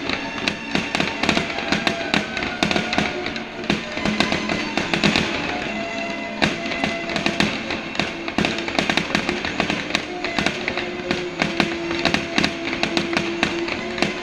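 Fireworks bursting and crackling in quick succession, several sharp bangs a second, over music with sustained tones.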